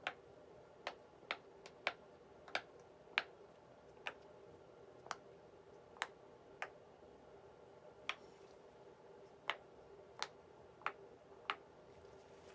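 Silicone pop-it fidget toy being pressed, its bubbles popping one at a time: about fifteen sharp little pops, roughly one a second at an uneven pace.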